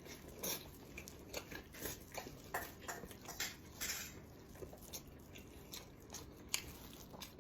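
A person chewing and biting food close to the microphone: irregular wet smacks and crunchy clicks, several a second.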